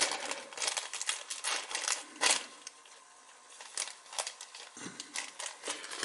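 Irregular light clicks and taps of small metal tools and lighter parts being handled on a workbench, with one louder tap about two seconds in.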